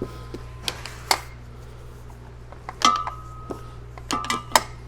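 Socket wrench with a long extension clinking and knocking against metal as it is worked in toward a propeller shaft bolt: a handful of sharp metallic knocks, two of them with a brief ringing tone, about three seconds and four seconds in.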